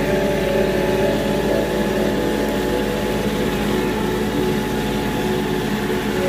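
Tractor engine running steadily while driving a rotary tiller through a field.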